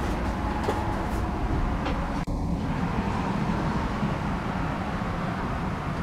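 Steady low background rumble with no clear tone, briefly cutting out about two seconds in.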